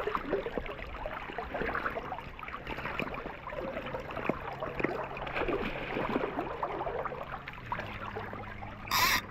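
River current gurgling and splashing as a hooked rainbow trout thrashes at the surface beside the landing net. There is a brief loud burst near the end.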